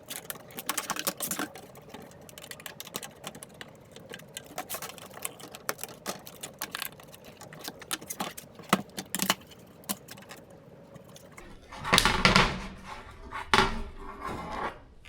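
Small metallic clicks and rattles of a sheet-metal side-panel screen being handled and pried loose by its bent tabs, with two louder scraping clatters near the end.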